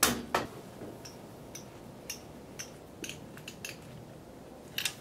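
Clicks and light metal ticks from a microphone stand and its shock mount being adjusted by hand over a snare drum. Two sharp clicks open it, a third of a second apart, then scattered small ticks, and a quick double click near the end.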